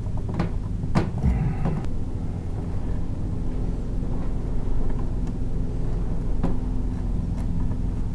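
A steady low hum, with a few light clicks and rustles as wires are handled and fitted at a boat's blade-fuse block.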